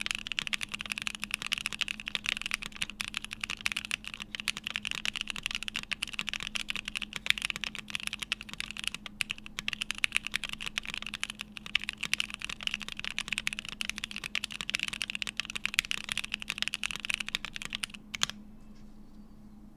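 Fast, continuous typing on a Bakeneko mechanical keyboard with stock Gateron Oil King linear switches, an FR4 plate and CRP keycaps: a dense run of keystrokes that stops about eighteen seconds in.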